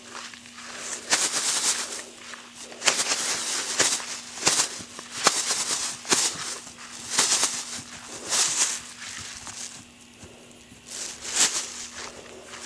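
Hooves of two Connemara ponies trotting and cantering on grass: irregular swishing footfalls, with a short lull about three-quarters of the way through.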